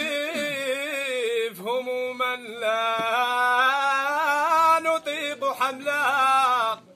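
A man's voice chanting an unaccompanied Sufi devotional chant, with long, wavering held notes. The voice breaks off just before the end.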